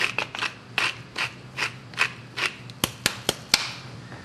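Wooden pepper mill grinding black pepper: a rasping crunch repeated in even twists, about two or three a second, followed near the end by a few sharp clicks.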